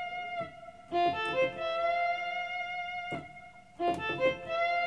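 Electronic keyboard playing a lead melody one note at a time in F: a quick run of short notes about a second in, a long held note, then another quick run near the end.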